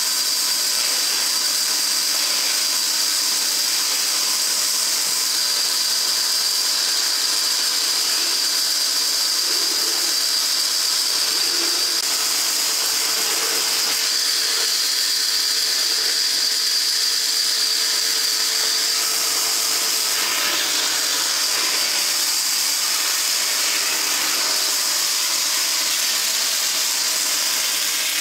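Band saw running steadily with a constant high whine as a wooden board is fed through the blade to cut out spoon blanks.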